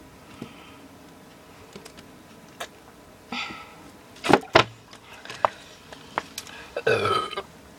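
A girl burping, a rough drawn-out burp near the end brought up by drinking fizzy soda. Two sharp loud clicks come a couple of seconds before it.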